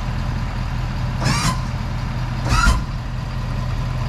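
Ford F-450's 6.7-litre Power Stroke diesel V8 idling steadily. Two short high-pitched cries come about a second and a half apart, near the middle.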